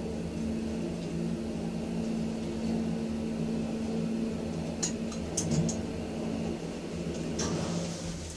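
Lift (elevator) running: a steady machine hum with a few sharp clicks about five seconds in, the hum dying away near the end.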